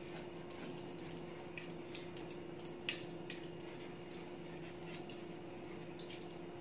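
Faint scattered clicks and rubbing as hands handle a chrome wall-mounted kitchen mixer tap and work its lever, the loudest click about three seconds in, over a faint steady hum.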